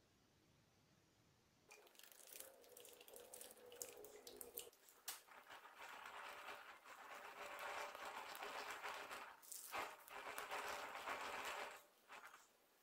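Chocolate whipped cream squeezed out of a piping bag: a wet, hissing squelch with many small pops and crackles. It starts about two seconds in and stops shortly before the end.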